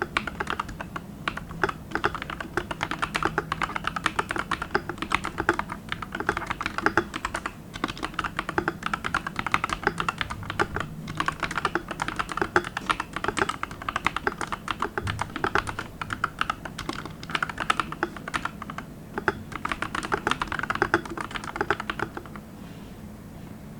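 Fast, continuous typing on a Tecware Spectre mechanical keyboard with Akko CS Green switches and plastic XDA-profile keycaps, dense irregular key clacks. The typing stops shortly before the end.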